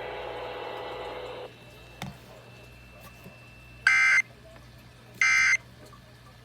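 Emergency Alert System End of Message signal: two short digital data bursts sent as two alternating tones, a little over a second apart, the first about four seconds in. They mark the end of the test. Before them, a steady background hiss cuts off about a second and a half in.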